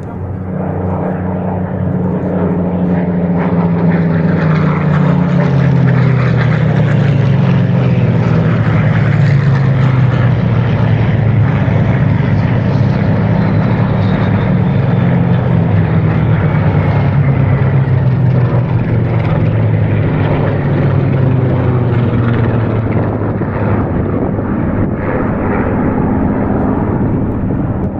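A formation of Spitfires flying past, their V12 piston engines giving a loud, sustained drone. Several engine notes overlap and fall in pitch as the aircraft pass.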